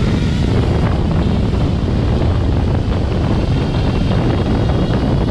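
5-inch FPV racing quadcopter taking off from its launch pad at full throttle: a loud, steady rush of propeller wash blasting the microphone, with the motors running under it.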